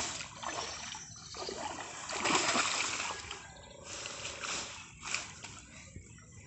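Water splashing and sloshing as a bamboo-framed push net is worked through shallow, weedy water, in uneven surges, loudest a little after two seconds in.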